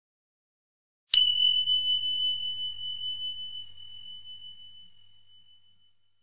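A small bell struck once: a clear, high ring that wavers slightly as it fades away over about five seconds.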